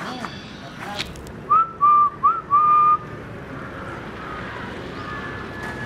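A person whistling four short notes, the first and third swooping up and back down, the second and fourth held level, over a steady outdoor background hiss.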